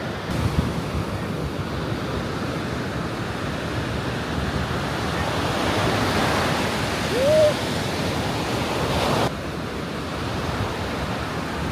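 Surf washing onto a beach, with wind buffeting the microphone; the wash swells about halfway through. A brief rising call rings out over the surf just after the swell, and the sound drops suddenly about three-quarters of the way in.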